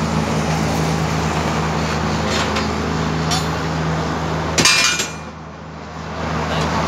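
Steady construction-site din over highway traffic, with a constant low engine hum. A couple of faint clinks, then one sharp metallic clank about four and a half seconds in, after which the noise drops away somewhat.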